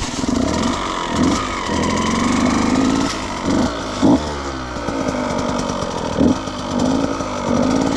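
Husqvarna two-stroke dirt bike engine running at low revs, with several short blips of the throttle.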